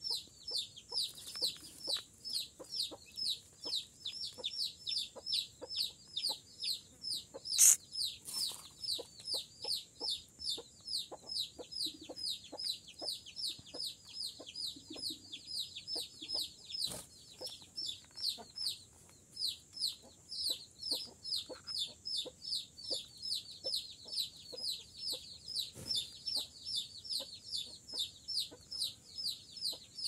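Alexandrine parakeet chicks giving a fast, regular series of short, downward-sweeping squawks, about two and a half a second without a break, as young parrots do when begging. One loud sharp click sounds about a quarter of the way in.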